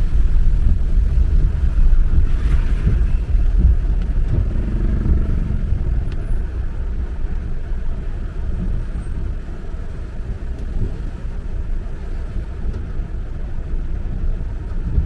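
A car driving: a steady low rumble of engine and road noise that eases slightly in level over the seconds.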